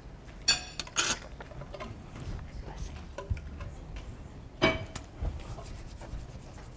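Metal communion trays holding small cups clinking as they are carried and set down: three sharp clinks with a brief ring, about half a second in, at one second, and again near five seconds.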